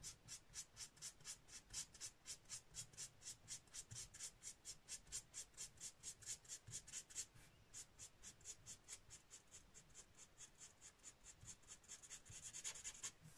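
Faint scratching of a Stampin' Blends alcohol marker nib on cardstock in quick, even strokes, about four a second, blending colour over a stamped image. Near the end the strokes run together into one longer rub.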